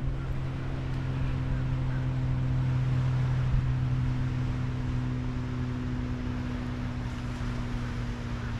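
Engine running with a steady low hum, swelling a little about three seconds in and easing off again.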